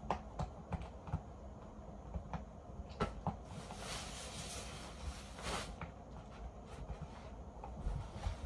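Quiet room with scattered small clicks and soft knocks, and a rustling hiss lasting about two seconds a little past the middle.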